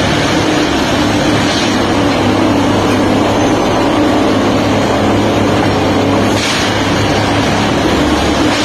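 An engine running steadily with a constant low hum over a dense, even noise.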